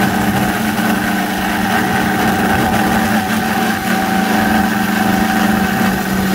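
Hobby CNC 3018 router milling aluminium: its 500-watt brushless DC spindle drives a small end mill spiralling down into the metal. The result is a steady, really loud machining whine with cutting noise over it.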